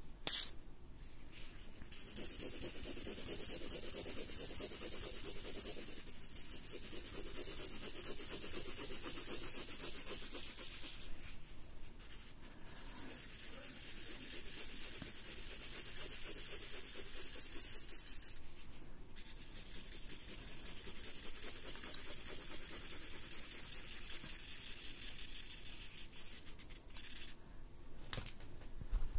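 Sharpie marker rasping across sketchbook paper in rapid back-and-forth hatching strokes, filling in a background. It comes in long runs, with short pauses about 11 and 19 seconds in. A single sharp click comes about half a second in.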